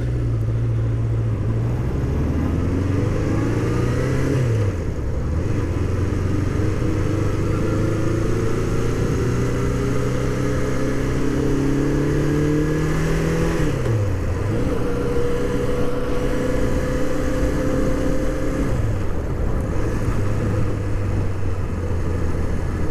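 1981 Honda CB650's air-cooled inline-four engine pulling away and accelerating through the gears on its stock four-muffler exhaust. The revs climb, drop sharply at upshifts about four, fourteen and nineteen seconds in, then hold steady at cruising speed.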